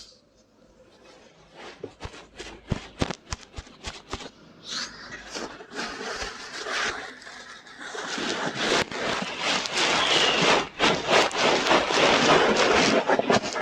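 Ear-cleaning ASMR scratching close against a microphone's ear: a few sharp taps and clicks at first, then dense, continuous scratching and rustling that grows louder about halfway through.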